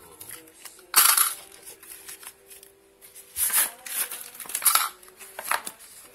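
Cardboard parcel being opened by hand: packing tape slit with a blade and the cardboard torn and pulled apart, in several short bursts, the loudest about a second in.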